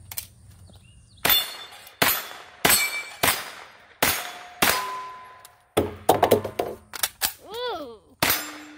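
AK-pattern rifle firing about a dozen single shots, spaced half a second to a second apart and coming faster later on, with steel targets ringing out with a clang after several of the hits.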